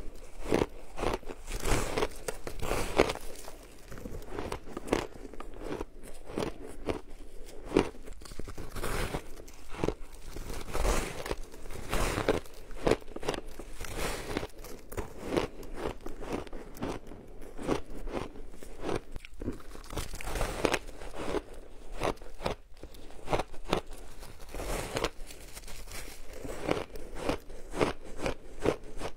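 Crunching and chewing of packed, frozen purple shaved ice: repeated crisp bites into an ice chunk, followed by many quick crackling crunches as it is chewed.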